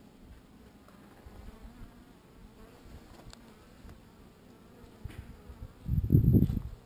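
Honeybees buzzing around an open top-bar hive: a faint hum at first, then a loud low buzz for under a second about six seconds in.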